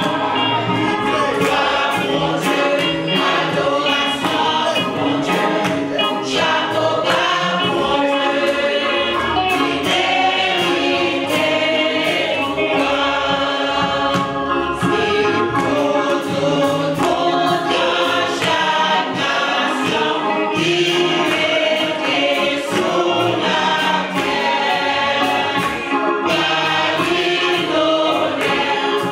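Small mixed group of men and women singing a gospel hymn in harmony into microphones, over a percussive beat.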